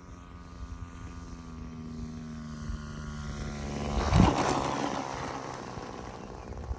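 Homemade RC profile plane's 20cc two-stroke petrol engine running at steady throttle, growing louder as the plane comes in low, loudest as it passes close by about four seconds in, then fading as it flies off.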